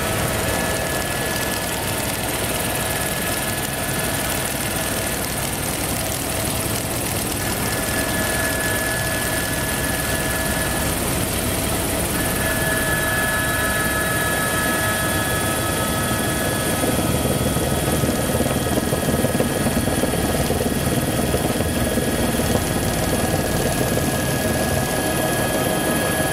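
Helicopter heard from inside the cabin on the approach to land: steady engine and rotor noise with several high, steady whining tones over it, growing a little louder and rougher about two-thirds of the way in.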